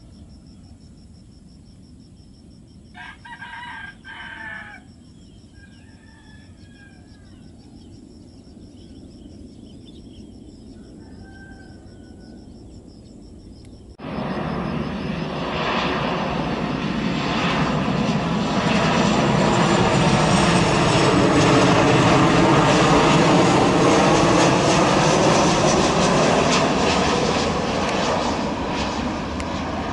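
A rooster crows about three seconds in over a faint low rumble. About halfway through, the sound cuts to a Boeing 737 jet on final approach: its engine noise comes in suddenly, swells to a loud steady level and eases slightly near the end.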